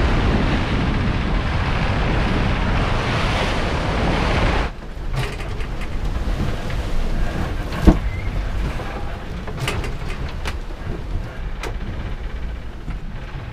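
Wind and rushing sea water around a sailing yacht under way in big waves, with wind buffeting the microphone. About five seconds in it cuts abruptly to a quieter low rumble of the sea against the hull below deck. Over that rumble come small clicks and knocks of food and utensils being handled at the galley, with one sharp knock about eight seconds in.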